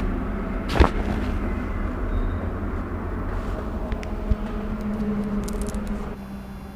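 Chiropractic spinal adjustment: one sharp thud about a second in as the thrust is delivered on the patient's exhale, with a smaller click around four seconds. A steady low background hum runs underneath and drops away near the end.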